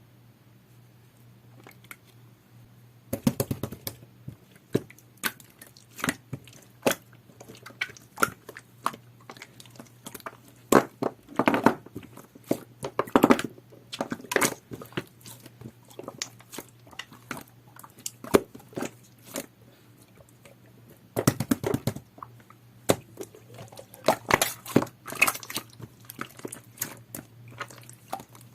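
Clear jelly-textured slime being worked by hand: an irregular run of sticky clicks, squishes and small pops that starts about three seconds in, with a few denser, louder clusters.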